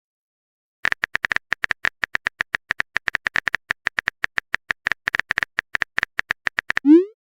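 Phone keyboard typing sound effect: a rapid run of short, even clicks, about eight a second, starting about a second in. Near the end comes a quick rising swoosh, the sent-message sound.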